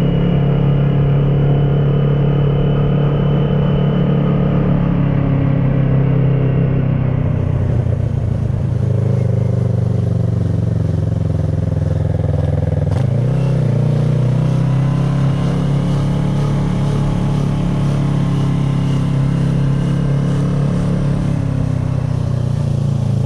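2010 Kawasaki ER-6n parallel-twin engine through an SC-Project carbon exhaust, running steadily under way, with a sudden change in engine pitch about halfway through, as at a gear change.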